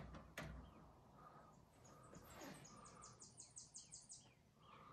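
Near silence: faint room tone, with two light taps at the start and faint high chirping in a quick series through the second half.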